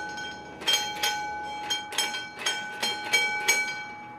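Railway signal bell ringing in repeated strokes, about two a second at uneven spacing, each stroke leaving a ringing metallic tone. This is typical of a bell warning that a train is due.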